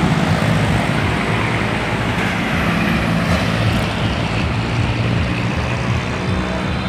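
Steady noise of motor traffic passing on a busy road.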